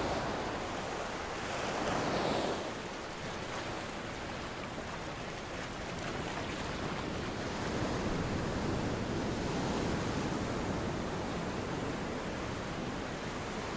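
Sea surf breaking and washing up a pebble beach, a steady rush that swells about two seconds in and again in the second half.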